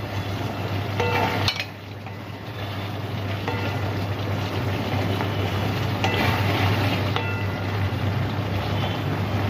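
A wooden spatula stirs pointed gourd curry in an aluminium kadai, scraping through the vegetables and knocking against the pan several times. The pan rings briefly after each knock. A steady hiss and low hum run underneath.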